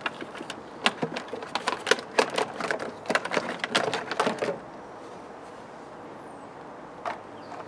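A run of sharp, irregular clicks and knocks of hand tools and metal parts being handled on a small engine, stopping about four and a half seconds in, with one more click near the end.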